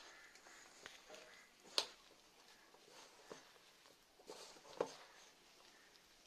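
Faint rustling and crunching of shredded cabbage, onion and leafy greens being squeezed and mixed by hand with gram flour and rice flour in a steel bowl, with two sharp clicks about two and five seconds in.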